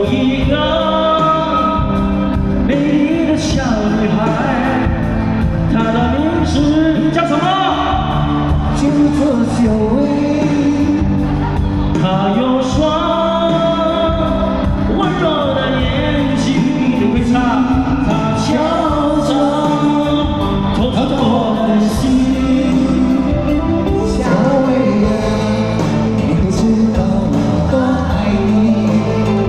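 A pop song sung with instrumental accompaniment, the vocal line rising and falling in long phrases over a steady band backing.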